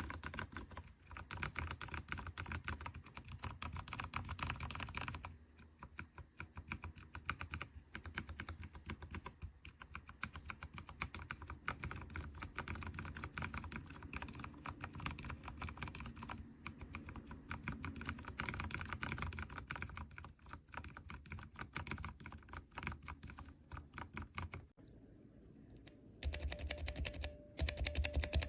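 Mechanical keyboard switches clicking as keys are pressed in quick succession, like fast typing. There is a brief lull about five-sixths of the way through, then the clicks return louder with a steady tone underneath.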